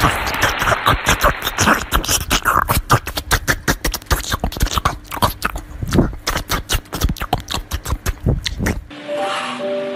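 A small white fluffy dog chewing watermelon: rapid crunching bites, several a second, which stop about nine seconds in.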